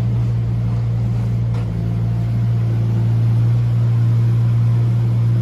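Mini excavator's engine running steadily at constant speed, a low even drone with a fast pulse underneath.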